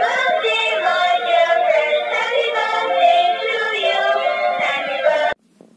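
Dancing cactus toy playing a song through its small built-in speaker, a high-pitched singing voice over a melody, which cuts off suddenly about five seconds in.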